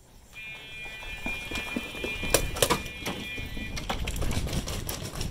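Electric game-start buzzer sounding one steady tone for about three and a half seconds, the signal that a paintball round has begun. Sharp pops of paintball markers firing come in under it and keep going after it stops.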